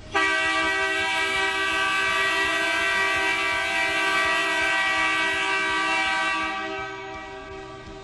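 Arena goal horn, an array of compressed-air truck horns fed by a large air compressor through a solenoid valve, sounding one loud, steady multi-tone chord. It starts suddenly, holds for about six seconds, then dies away as the timed blast ends.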